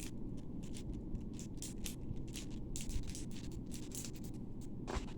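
Wacky Track fidget chains being handled, their plastic links clicking as they are bent into new positions: many quick, irregular small clicks.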